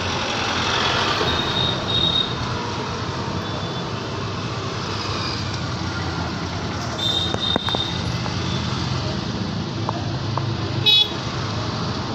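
Busy street traffic: engines of passing buses, motorbikes, scooters and auto-rickshaws, with short horn toots about one to two seconds in and again about seven seconds in. A brief sharp high sound near the end is the loudest moment.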